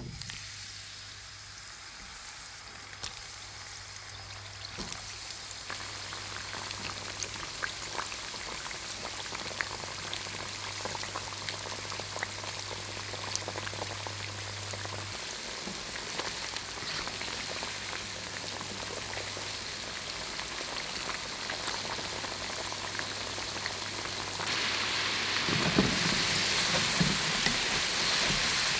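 Cornstarch-coated potato sticks frying in hot vegetable oil in a small saucepan: a steady sizzle full of tiny pops and crackles that slowly grows louder. Near the end it gets clearly louder, with a few low knocks as a metal mesh strainer stirs the fries in the oil.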